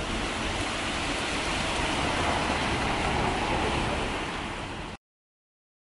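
Heavy rain and rushing floodwater in a street: a steady wash of noise that cuts off suddenly about five seconds in.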